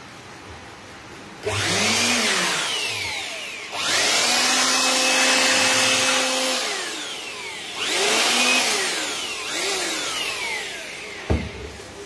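Jackly handheld electric air blower switched on and off four times, running in short blasts of rushing air with a motor whine that rises as it spins up and falls as it winds down; the second run is the longest, about three seconds. A sharp knock near the end.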